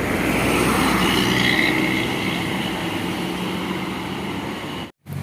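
Coach bus driving past, its diesel engine and tyre noise swelling and then easing off. The sound cuts out briefly near the end.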